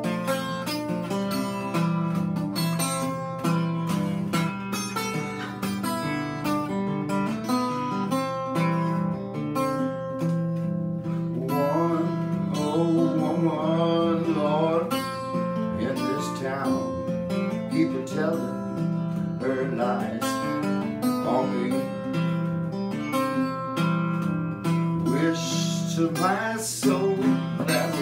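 Acoustic guitar played in a country blues style, with a plucked bass line under the melody. A man's voice joins in from about twelve seconds in.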